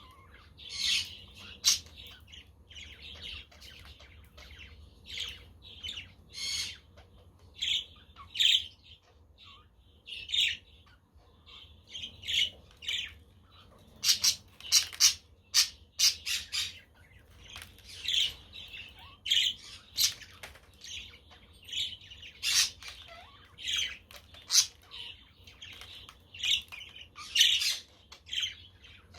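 Budgerigars chirping and chattering in a steady stream of short calls, with a quick volley of sharp calls about halfway through.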